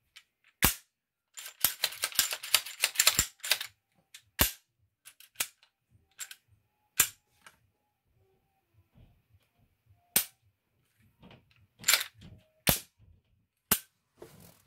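Sharp metallic clicks and clacks of a stainless steel Glock pistol slide being handled and its parts fitted, about ten separate clicks with a quick rattling run of them around two to three seconds in.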